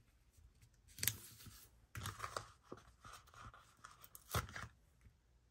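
Paper planner stickers being handled: a sharp paper snap about a second in, then rustling as a sticker is peeled from its backing sheet, and another sharp tick later on.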